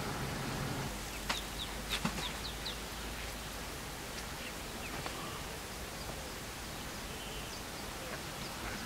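Outdoor bush ambience: a steady hiss with a few short, high bird chirps, mostly between one and three seconds in. There are also two sharp clicks about one and two seconds in.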